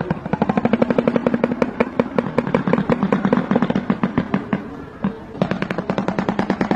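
A bird's rapid rattling clatter, about a dozen sharp strokes a second, in two runs with a short break about five seconds in.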